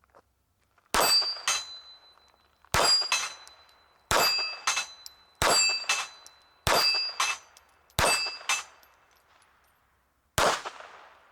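Seven pistol shots from a Heckler & Koch HK4 firing .32 ACP 71-grain ball, spaced about one to two seconds apart. After each of the first six, about half a second later, a steel plate target rings with a high, lingering clang as the bullet hits. The last shot has no clear ring after it.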